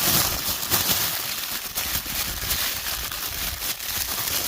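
Toy packaging being handled and crinkled in quick, irregular rustles and crackles as an action figure is worked out of its box.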